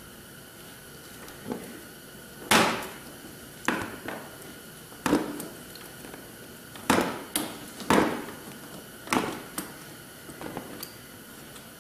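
Hand tool working the 10 mm seat bolt on a dirt bike: about ten sharp, irregularly spaced clicks and knocks of metal against the bolt and plastic bodywork, the loudest about two and a half seconds in.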